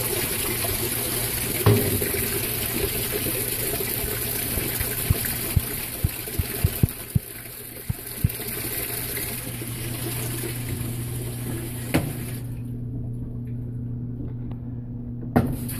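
Water rushing into an Estate Whirlpool washing machine's tub through the newly replaced inlet valve, a steady pour with a low hum under it and a few scattered clicks; the repair is working, with water coming in on both the hot and cold sides. Near the end the rush stops for about three seconds while the hum carries on, then starts again with a click.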